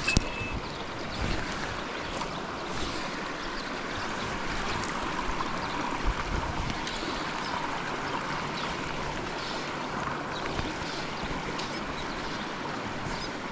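River current rushing steadily around a wading angler, an even noise of flowing water, with one sharp click right at the start.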